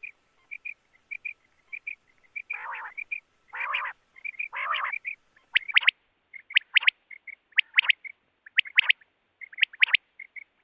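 Quail calling: a repeated series of sharp two- and three-note calls about once a second, with soft short chirps between them and three harsher, raspy calls a few seconds in.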